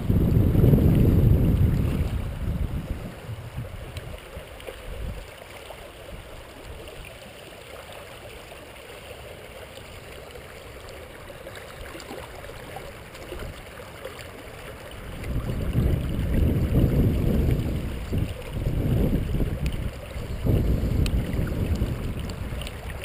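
Shallow river water running around the wader's legs, with loud, uneven low rumbling from wind buffeting the microphone for the first couple of seconds and again over the last several seconds.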